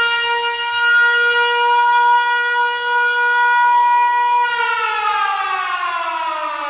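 A loud siren-like tone holding one steady pitch, then sliding slowly down in pitch from about four and a half seconds in, like a siren winding down.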